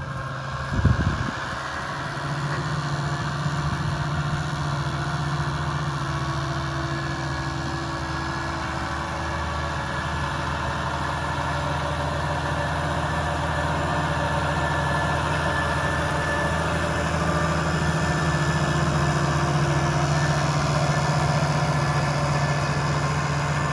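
Large diesel farm machine engine running steadily, slowly getting louder, with one short low thump about a second in.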